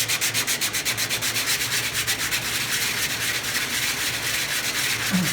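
Coarse 80-grit sandpaper on a hand sanding block rubbing back and forth over a wooden spatula, in rapid, even strokes.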